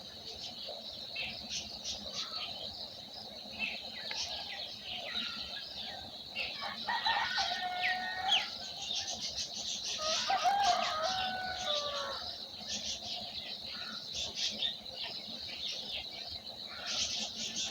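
Many small birds chirping and twittering without pause, high-pitched. Twice, about seven and ten seconds in, a louder, lower call of about two seconds rises over the chatter.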